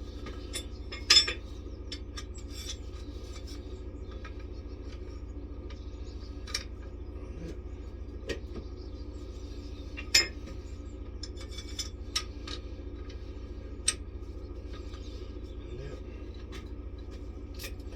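Metal parts of a Tyron band removal tool clinking and knocking as they are positioned on the wheel, scattered clicks with two louder knocks, about a second in and about ten seconds in, over a steady low hum.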